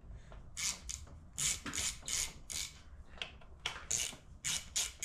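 Bolts being threaded in by hand on the recoil pull-start housing of a Vittorazi Moster 185 paramotor engine: a run of short, uneven metallic clicks and scrapes, a few each second.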